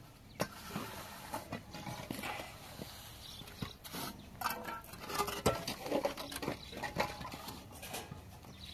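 Masonry work with a steel trowel and concrete blocks: the trowel scraping and patting wet mortar and blocks knocking as they are handled and set down, giving a string of short scrapes and knocks, the loudest about halfway through. A few short voice-like calls come in the middle.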